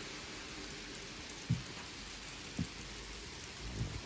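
Model train running on the layout: a Class 59 model locomotive hauling a heavy rake of 42 hopper wagons, the many small wheels on the rails giving a steady rushing hiss over a low rumble. Three short low thumps come in during it.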